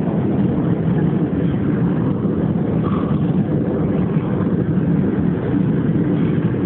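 Steady airliner cabin noise, an even low rumble that does not change.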